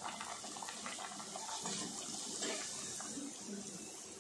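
Luchi (deep-fried wheat-flour bread) frying in hot oil in a pan, the oil sizzling and bubbling steadily around it as it puffs up.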